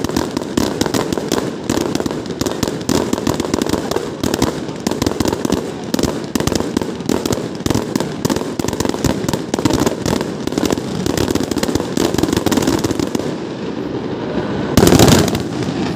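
Fireworks display: a dense, rapid barrage of bangs and crackles that thins out near the end, then one loud burst about a second before the end.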